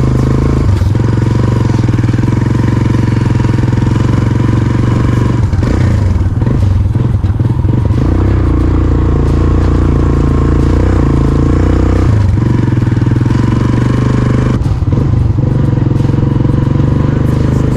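Motorcycle engine running under way, loud and steady, its note shifting a few times as the throttle changes.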